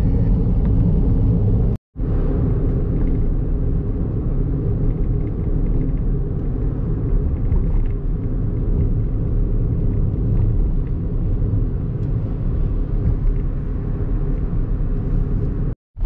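Steady road and engine rumble inside a moving car's cabin. The sound drops out briefly to silence just under two seconds in and again just before the end.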